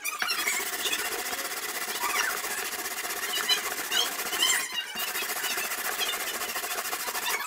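Fast back-and-forth scrubbing of a rusty steel knife blade with a scrubbing pad in soapy water: a steady scratchy rubbing with short squeaks, breaking off briefly just before halfway.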